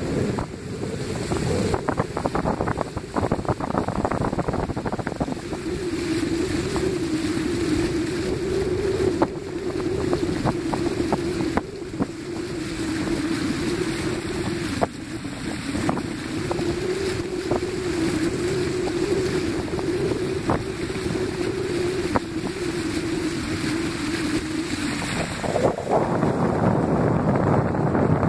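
A vehicle driving through shallow floodwater covering a road: a continuous wash and splash of water thrown up by the wheels, with wind noise on the microphone. A steady hum runs under it through the middle, and the rushing grows louder near the end.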